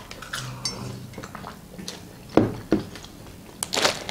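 Quiet eating and drinking at a table: two light knocks, like a mug being set down, then a brief rustle of a hand digging into a plastic tub of popcorn near the end.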